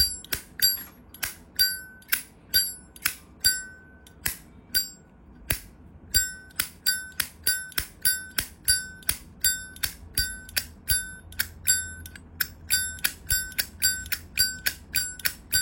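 Zippo lighter lid flicked open and snapped shut again and again, about two to three clicks a second with a short lull partway through. Each click rings with a bright bell-like tone, the "âm chuông" that collectors prize in a good lid and hinge.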